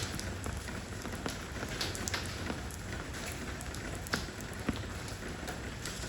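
Steady rain falling on stone stepping stones, with individual heavier drops striking close by at irregular moments.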